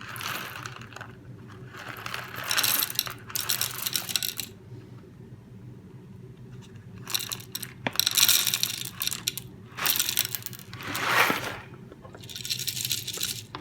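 Whole coffee beans being poured into a portable grinder's metal grinding chamber, rattling and clattering in about five separate pours.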